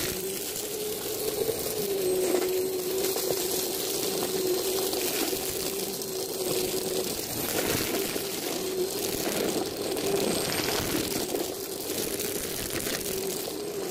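Small vacuum cleaner running with a steady motor whine, sucking up shredded paper, foil and plastic debris that crackles and rattles through it. The clip is sped up to double speed.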